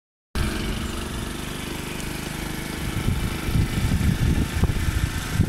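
Motor vehicle engine running steadily with a low hum. From about three seconds in, wind buffets the microphone.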